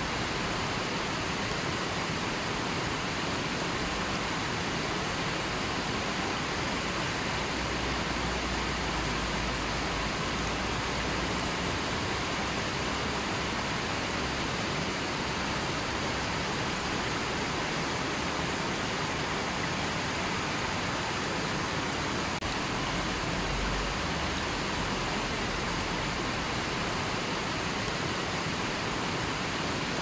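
River water rushing over and around rocks: a steady, even rush that does not change.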